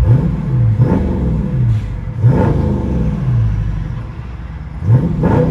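2019 Dodge Charger Scat Pack's 392 HEMI V8 revved in park through Dynomax Race Bullet mufflers: four quick throttle blips, each rising in pitch and falling back toward idle, heard from inside the cabin.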